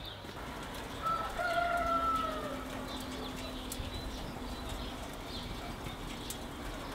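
A bird calls once, about a second in: a single pitched call lasting about a second that falls slightly at its end, over a low steady outdoor background.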